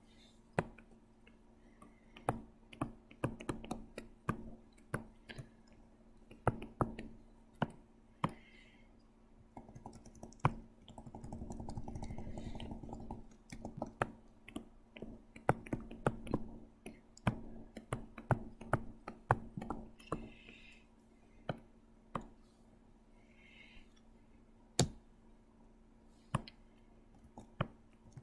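Irregular light clicks and taps of computer input devices (mouse, keyboard and drawing pen) over a steady low hum, with a brief rubbing noise about halfway through.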